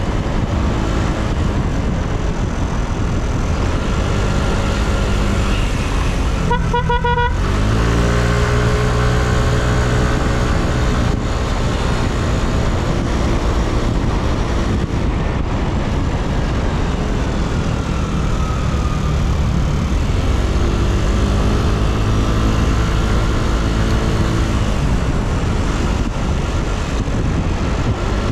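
Yamaha Cygnus X scooter's 125 cc single-cylinder engine running on the road, its pitch rising as it accelerates and falling as it eases off, over road and wind noise. A vehicle horn honks once, briefly, about seven seconds in.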